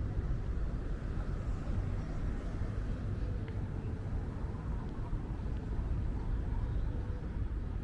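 Wind buffeting the microphone: a dense, low rumble that flickers up and down in loudness without a break.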